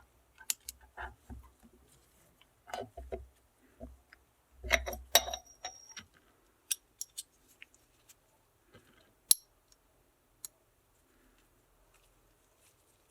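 Small metal parts of a diesel injection pump being handled on the bench: irregular clicks and clinks, a cluster of them about five seconds in with one briefly ringing, and a single sharp click a little after nine seconds.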